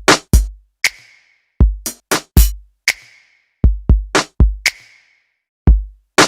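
Background music: an electronic drum-machine beat of deep kick drums and sharp snare or clap hits, with no melody over it.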